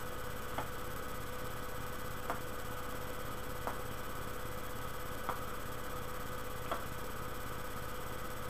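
Steady electrical hum and hiss, with faint soft clicks about every second and a half from lips puffing on a tobacco pipe.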